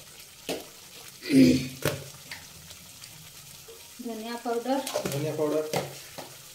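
Spiced masala sizzling as it fries in oil in a kadai, while a spatula stirs it and knocks against the pan several times.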